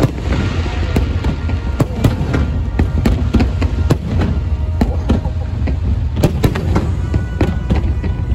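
Large fireworks display: aerial shells bursting one after another in quick, irregular succession, sharp bangs and crackles over a steady low rumble.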